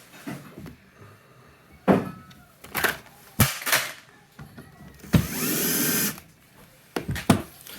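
Cordless drill-driver runs for about a second, driving a screw. Several sharp knocks and clicks of tools being handled come before it and two more near the end.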